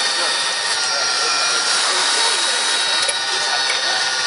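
RC model Komatsu excavator running, a steady mechanical whine made of several high tones at once.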